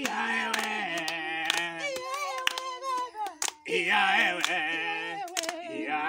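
A small group of voices singing a praise song together, with hand claps keeping time about twice a second. The singing breaks off briefly about three and a half seconds in, then picks up again.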